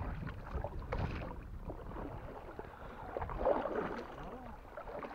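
Kayak paddle dipping and splashing, with water lapping and swishing along the hull of a moving sit-on-top kayak, in uneven strokes.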